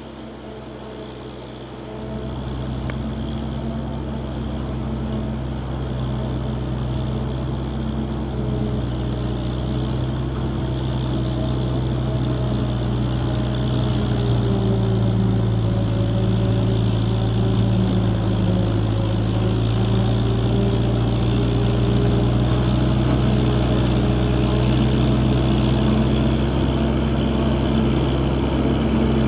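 Farm tractor engine running steadily, getting louder from about two seconds in as it comes closer, its pitch dipping briefly and recovering about halfway through.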